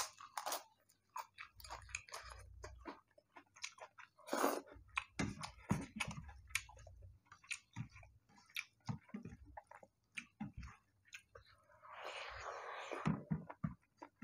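Close-miked chewing of a mouthful of rice and curry with crisp papad: a run of short, irregular wet smacks and crunches, with a longer, louder noisy stretch near the end.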